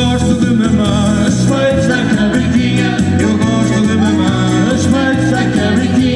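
A live band playing Portuguese popular dance music, with a steady beat under the melody.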